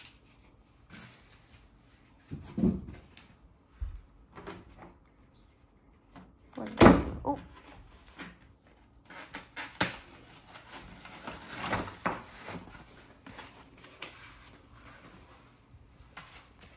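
Unpacking sounds as foam protective wrap is cut and pulled off a folding e-bike's frame: irregular snips, rustles, clicks and knocks. One louder knock comes about seven seconds in.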